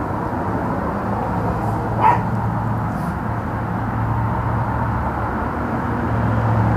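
Steady low background hum, with one brief pitched sound about two seconds in.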